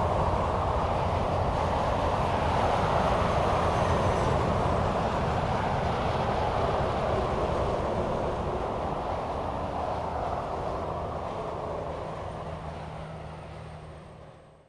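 Steady rush of highway traffic: tyre noise and engines of passing cars and trucks, gradually fading out and dropping away in the last second or so.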